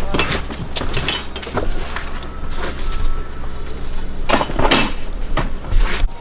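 Repeated knocks and scraping from hands-on work, irregular throughout, over a steady low hum and faint music.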